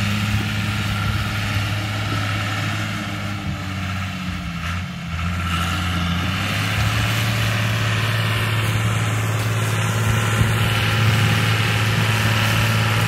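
John Deere 3350 tractor's diesel engine running steadily under load as it pulls a disc harrow through the soil. Its note dips briefly about four seconds in, then holds steady again.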